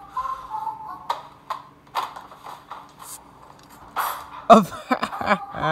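A man vocalising without clear words: a few held, stepped notes at first, then loud sweeping exclamations near the end. Clicks and knocks are scattered through it. It is heard as playback from a screen through a small speaker.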